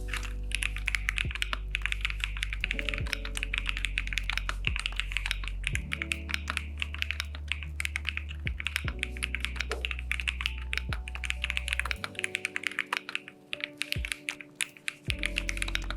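Fast typing on an AKKO MonsGeek M1W aluminium-case mechanical keyboard: a dense, continuous run of key clacks. Background music with held low notes plays underneath, its bass dropping out for a few seconds near the end.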